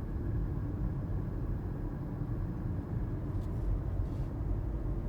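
Steady low road and engine rumble of a car being driven, heard from inside the moving vehicle.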